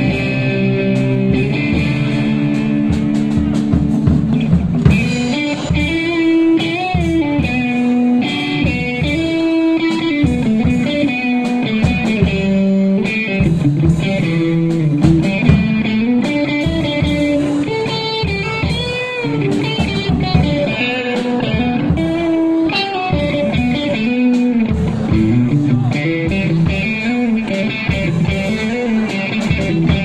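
Live rock band: an electric guitar plays a lead melody with bent, wavering notes over a drum kit beat.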